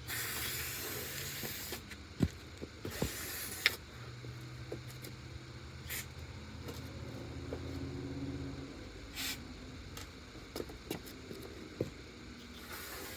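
Aerosol can of starting fluid sprayed in hissing bursts, to seat a tire bead: a long spray of about two seconds at the start, another about three seconds in, then a few short puffs. A few sharp clicks and a low hum run under the first part.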